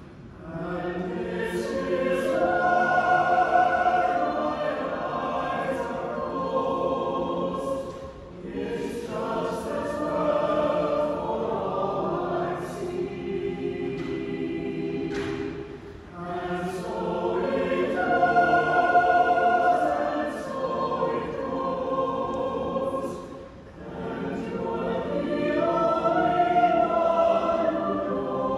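Mixed-voice a cappella choir singing in chords, men and women together. The sung phrases last about eight seconds each, with short breaks between them.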